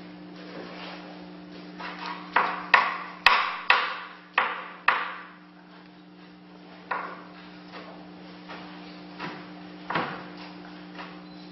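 Kitchen knife chopping on a wooden cutting board: a quick run of about six sharp knocks a couple of seconds in, then a few scattered chops. A steady low hum runs underneath.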